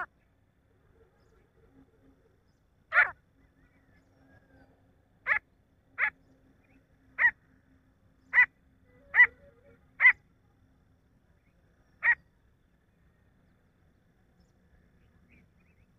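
Grey francolin calling: a series of short, sharp, loud calls spaced a second or two apart, ending about twelve seconds in.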